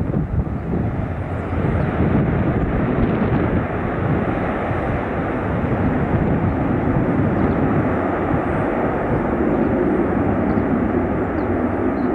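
Airbus A319-112's CFM56-5B jet engines in reverse thrust during the landing rollout: a loud, steady jet rush.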